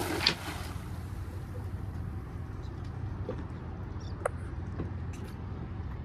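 A cast net splashing down onto calm water at the start, then the steady low hum of the boat's idling engine. A single sharp click about four seconds in.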